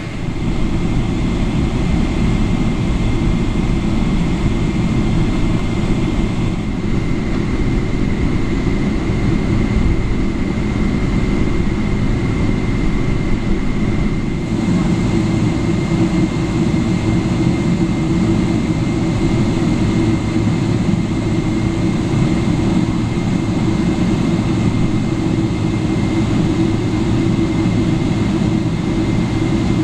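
Cabin noise of a Boeing 777-300ER taxiing, its GE90-115B engines at idle: a steady, dense low rumble with a thin, steady high tone above it.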